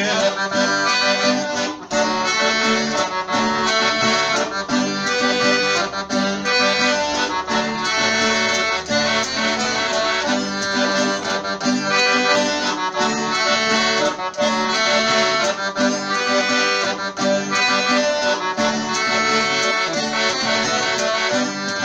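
Instrumental break of a gaúcho bugio tune: an accordion (gaita) plays the melody in full chords over a steady, even rhythm.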